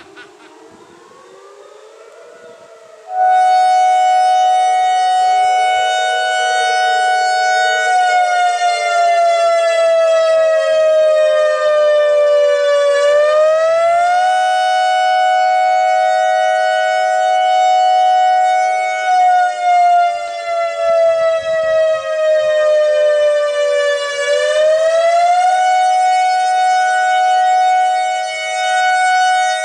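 ACA Alertronic AR-1600 electronic outdoor warning siren sounding its attack signal. After a faint wavering tone, a loud, harsh tone starts suddenly about three seconds in. It holds steady, then slides slowly down in pitch and jumps quickly back up, twice.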